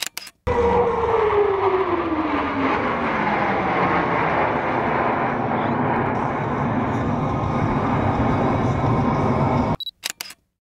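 Blue Angels F/A-18 Hornet jets flying over: a steady roar of jet engines, with a whine that falls in pitch over the first few seconds as they pass. The sound drops out briefly at the start and again near the end.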